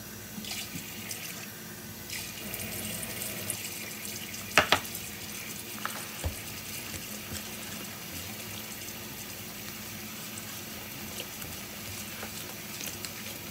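Pancake batter being stirred in a plastic bowl, a wet mixing sound, with two sharp knocks of the utensil against the bowl about four and a half seconds in and a smaller one near six seconds.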